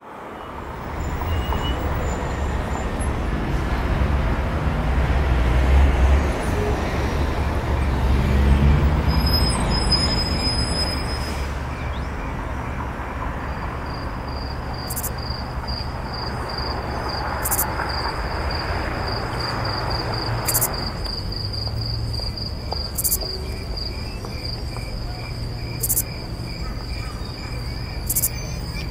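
Low rumble of street traffic with broad background noise. About two-thirds of the way through it eases off, and a steady, high, rapidly pulsing cricket-like trill takes over, with a sharp click roughly every two and a half seconds.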